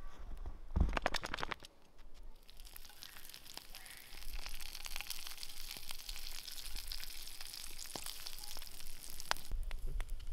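Food sizzling in a hot pan: a steady high hiss with small crackles that sets in about two and a half seconds in, after a few brief handling noises.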